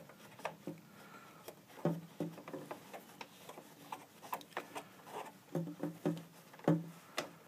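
Scattered light clicks and knocks from hands handling the plastic housing and intake cover of an Echo ES-210 leaf blower, with no engine running.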